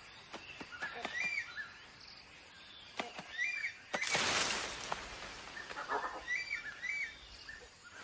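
Forest ambience: a bird calls the same short, chirpy phrase several times, with a few sharp snaps. About four seconds in comes a brief, loud rustle of leaves and branches.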